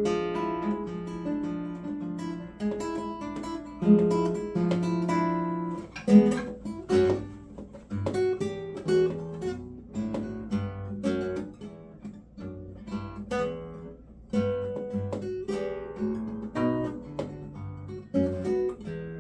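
Guitar being played: single picked notes that ring and fade, mixed with several louder strummed chords about four and six seconds in.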